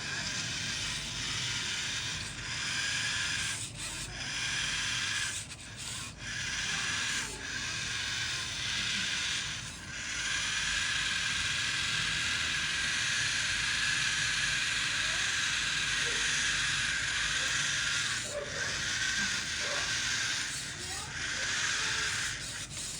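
Small electric gear motors of an Artec educational robot running with a steady whirring hiss, cutting out briefly several times as the robot starts and stops.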